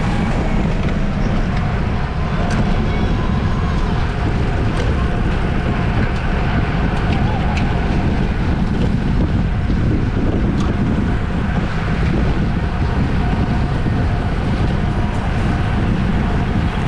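Steady, loud wind buffeting on the microphone of a camera carried at race speed on a bicycle, with a few faint clicks.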